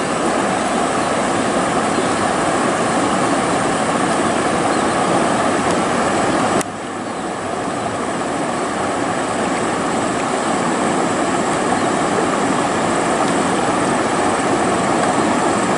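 Steady rush of river water flowing over rocks, an even noise without a beat or pitch; a click and a slight drop in level come about six and a half seconds in.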